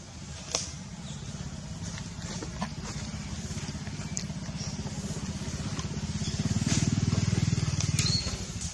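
A motor engine running, a low pulsing sound that grows louder about six seconds in and drops away near the end, with a few faint clicks over it.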